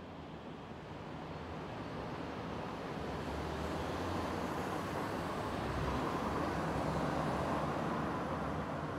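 Distant city traffic noise fading in as a steady rumble and hiss, slowly growing louder over the first half.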